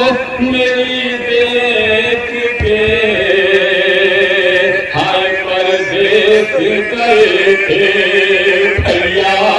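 A man's voice chanting an Urdu nauha, a Shia mourning lament, into a microphone, sung in long held, wavering notes. Two dull thumps come about a third of the way in and near the end.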